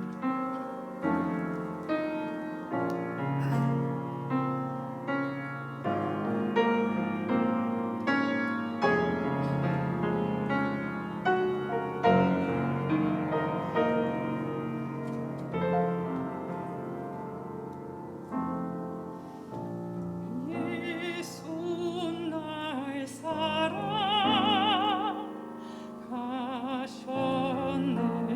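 Hymn accompaniment on piano, played as a gentle introduction of separate struck notes and chords. About twenty seconds in, singing with a wide vibrato comes in over the piano.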